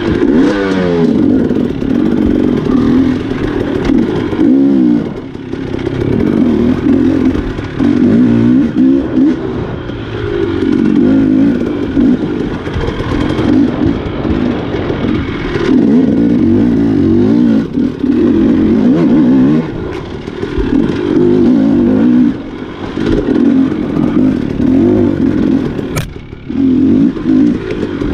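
Enduro dirt-bike engine revving up and down over and over as the throttle is worked on a rough trail, with some clatter from the bike and a sharp click near the end.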